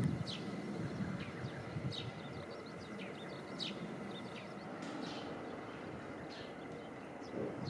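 Birds chirping: many short, high calls, each sliding downward in pitch, over a steady low background noise.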